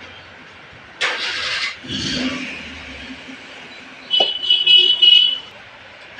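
Metal-on-metal work on a cooler exhaust motor's worn 6202 ball bearing, which has developed play. A rasping scrape comes first, then a knock with a short low ring, then a high-pitched metallic squeal about four seconds in.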